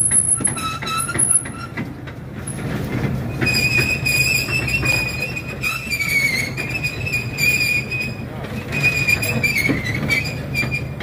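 Small sightseeing train running, its wheels squealing on curved track: a short squeal about a second in, then a long high-pitched squeal with brief breaks, over a steady low engine hum and scattered rail clicks.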